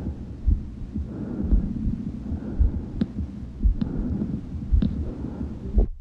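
Bronchial breath sounds heard through a stethoscope over the central chest: a breathy rushing that swells and fades with each breath. Under it a heartbeat gives dull thumps about once a second, with a few sharp clicks, and the sound cuts off suddenly near the end.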